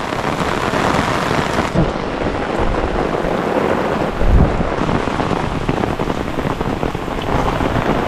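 Heavy rain shower pouring down and pattering on an open umbrella overhead, a dense steady hiss. There is a heavier low thump about four seconds in.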